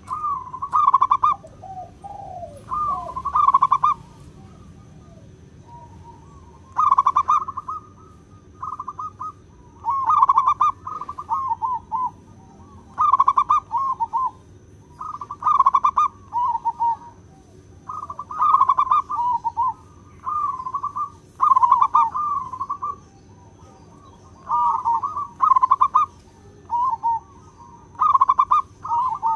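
Zebra dove (perkutut) singing its rolling, staccato cooing song, each phrase about a second long with a trilled ending, repeated every two to three seconds.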